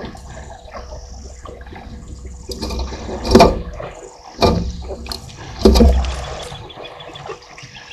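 African elephants drinking at a waterhole: water gushing and splashing as trunks draw it up and pour it into their mouths, with three loud splashes about a second apart midway.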